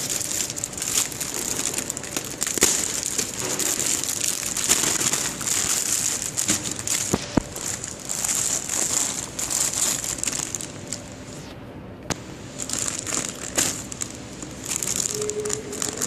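Clear plastic packing film and bags crinkling and rustling as they are handled, in irregular bursts with a short lull about eleven to twelve seconds in.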